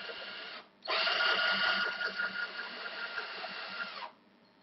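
Cordless drill motor whining as it drills a hole in matrix circuit board. It runs quietly, stops for a moment just under a second in, then runs louder for about three seconds and stops near the end.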